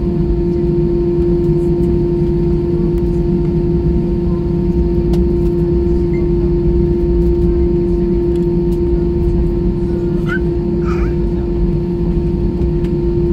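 Steady cabin noise of a jet airliner taxiing: a low rumble with a strong, even hum from the engines and air system. A few faint chirps come through near the end.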